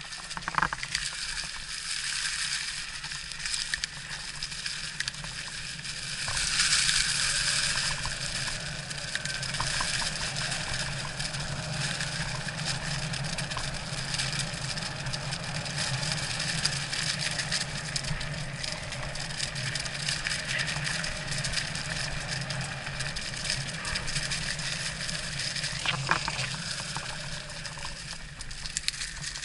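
Electric mountain bike being ridden on a trail: tyres rolling over rough ground with a steady drone, growing louder for a couple of seconds early on, and a sharp knock near the end.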